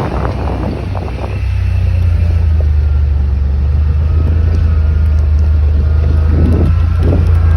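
Engine running at a steady speed: a loud low drone that swells about a second and a half in and then holds.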